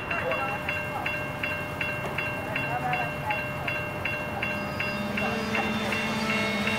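Level crossing warning bell ringing steadily, nearly three strikes a second, over the rumble of CGSY grain hopper wagons rolling past on the rails. A low steady hum joins in about five seconds in.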